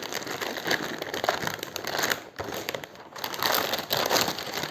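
Wrapping bag crinkling and rustling in irregular bursts as a keyboard is pulled out of it, with brief lulls about two and three seconds in.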